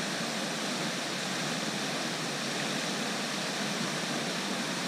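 Steady rushing splash of water from the pond's spray fountains, an even hiss with no breaks.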